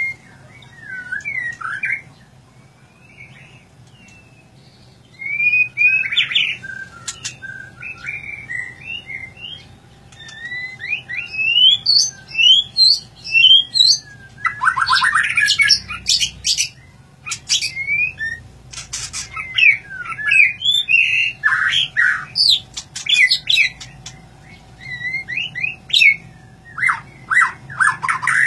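White-rumped shama (murai batu) singing a loud, varied song of quick rising and falling whistled phrases. Harsh rattling bursts come about halfway through and again near the end.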